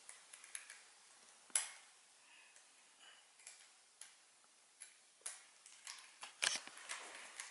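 Faint, scattered small plastic clicks and ticks from a tension tool tightening a tension nut on the center screw of a GAN 356 X speedcube, with light handling of the cube. One sharper click comes about a second and a half in, and a cluster of clicks comes in the second half.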